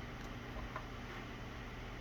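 A steady low hiss and hum with a few faint small clicks, about a quarter and three quarters of a second in, from quiet hand work on the wires and tape.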